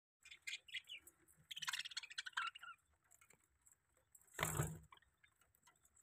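Budgerigars chirping, with a quick run of chattering warble about a second and a half in. A short rushing noise just after four seconds is the loudest sound.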